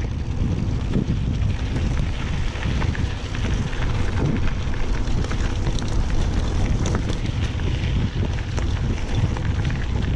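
Mountain bike riding a dirt trail: steady wind buffeting on the GoPro microphone under dense rattling and clicking as the bike rolls over the rough ground.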